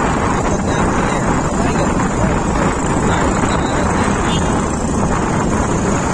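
Wind buffeting the microphone over the engine and road noise of a Bajaj Pulsar NS motorcycle cruising at a steady speed.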